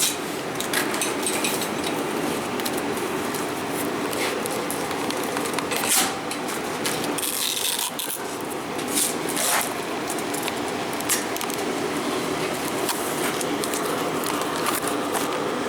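Scattered light clinks and knocks of hand tools and materials being handled, over a steady background hum, with a short hiss about seven seconds in.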